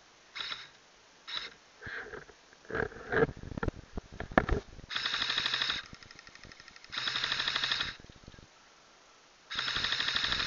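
Airsoft rifle firing three full-automatic bursts, each just under a second long and about two seconds apart, each a rapid rattle of shots. Before them come a few short snaps and some rustling and clicking.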